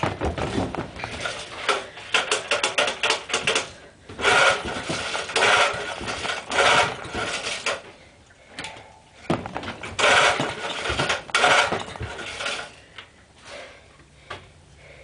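Small 2-horsepower tiller engine being pull-started cold, its recoil starter yanked about six times in loud rasping strokes, with a quick run of ticks about two seconds in. The engine turns over but does not keep running, even with a freshly rebuilt carburettor.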